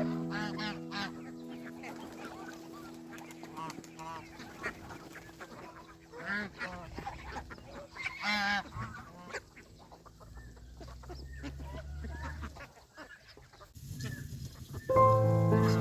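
Domestic geese honking, a flock giving short repeated calls, loudest about six and eight and a half seconds in.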